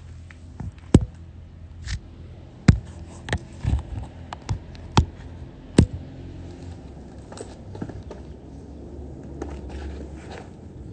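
A basketball bounced on a hard outdoor court: about seven irregular, sharp thumps from about a second in to about six seconds in, then only faint taps, over a steady low rumble on the phone's microphone.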